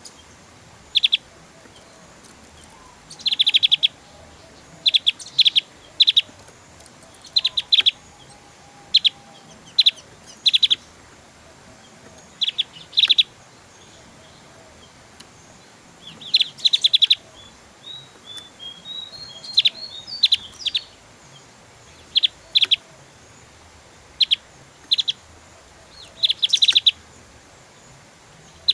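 Javan grey-throated white-eye (opior Jawa) singing: short bursts of rapid, high, stuttering notes repeated every second or two, the fast 'shooting' (tembakan) phrases, with a softer run of warbling notes about two-thirds of the way through.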